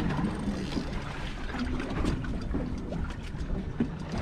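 Water lapping and sloshing against the hull of a small fishing boat, with a steady low rumble of wind on the microphone and a few small knocks and clicks.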